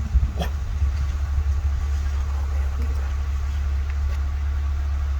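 Vehicle engine idling: a steady low hum, with a single click about half a second in.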